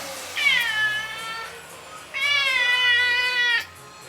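Domestic cat meowing twice: a short call that falls in pitch, then a longer, drawn-out meow.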